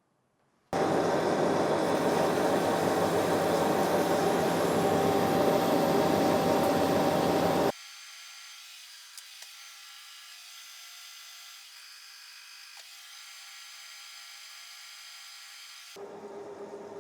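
Steel stock being cut by a shop machine: a loud, steady grinding-and-hiss noise with a faint steady tone, which stops abruptly after about seven seconds, leaving a much quieter hum of thin high tones.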